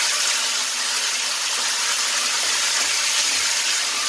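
Chopped tomatoes sizzling in hot oil in a kadhai, a steady loud hiss just after the wet tomatoes hit the tempered spices.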